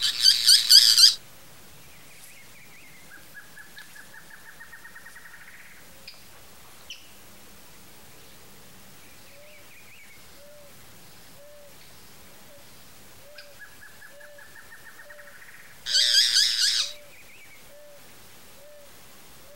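Boat-billed flycatcher calling: a loud, harsh rattling call about a second long at the start and again about 16 seconds in, with softer, quickening series of chattering notes between them. A faint low note repeats about once a second in the background over the second half.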